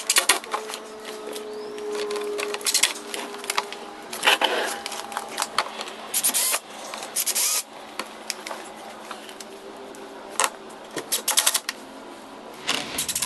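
Power drill with a 1/16-inch bit drilling pilot holes through a golf cart's plastic body panel, the motor whining in several short bursts.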